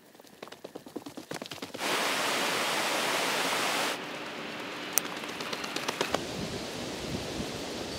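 Steady rushing outdoor noise, loudest for about two seconds early on, then dropping. In the second half it carries the quick, irregular footfalls of someone running on a dirt track toward the microphone.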